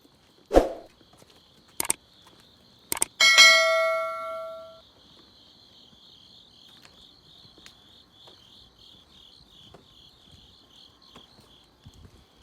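Crickets chirping steadily in a steady pulse. A dull thump comes about half a second in, then two sharp clicks, then a single metallic bell-like ding that rings out for about a second and a half and is the loudest sound.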